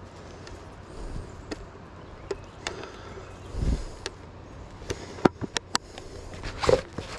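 Plastic fly box being handled and snapped shut: a few sharp plastic clicks and taps, bunched together about five seconds in, with a louder knock near the end.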